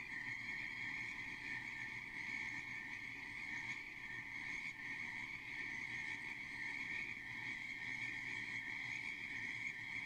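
Frogs calling in a steady, unbroken high-pitched chorus.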